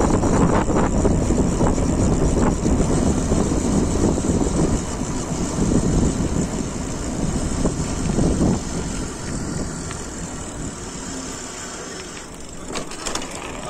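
Riding noise from a mountain bike on a trail, picked up by a body-strapped phone: wind rumbling on the microphone and tyres rolling over the ground. It eases off toward the end, with a few sharp clicks or rattles near the end.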